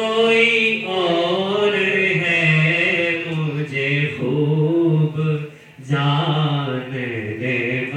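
A man reciting a naat unaccompanied, drawing out long notes that bend in pitch, with a short break for breath about five and a half seconds in.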